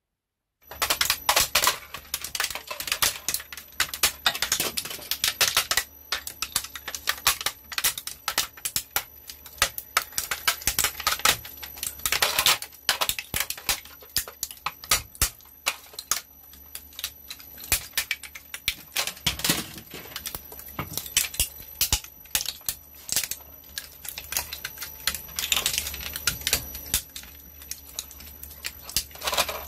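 Twin-shaft shredder's steel hook cutters crushing a hard plastic toy: a dense, irregular run of sharp cracks and snaps over the machine's steady low motor hum, starting after a brief silence at the very beginning.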